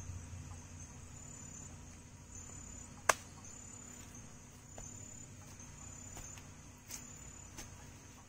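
Insects chirping, a thin high-pitched trill repeating in short bursts about once a second. A single sharp click about three seconds in, with a few fainter clicks later.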